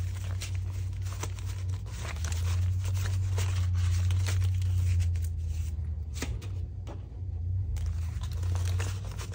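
Paper banknotes being handled and counted by hand, with crisp rustles and flicks as the bills are fanned and slid into a binder cash-envelope pocket, over a steady low hum.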